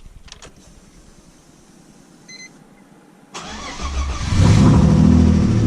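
A short electronic beep, then about three and a half seconds in the BMW E30's M52B28 inline-six is cranked and starts, running loudly after about a second.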